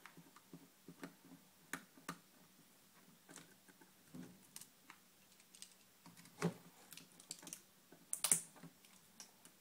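Faint, irregular small clicks and taps of a mini screwdriver and tiny screws against the plastic and metal screen frame of a netbook as a screw is taken out, with a couple of louder taps past the middle.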